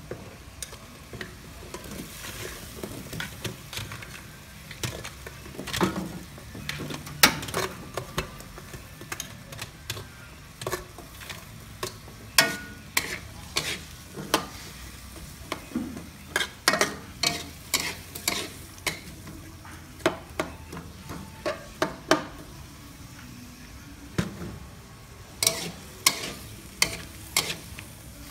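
Metal spoon clinking and scraping against a metal wok while stir-frying diced vegetables, over a steady sizzle of frying. The clinks come irregularly, thicker in the second half.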